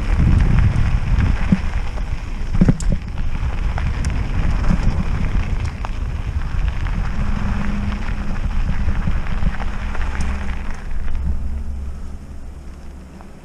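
Trek Roscoe 6 mountain bike rolling fast down a dirt access road: a rough crackle of tyres on the track, scattered small knocks, and wind rumbling on the microphone. The noise fades near the end as the bike slows down.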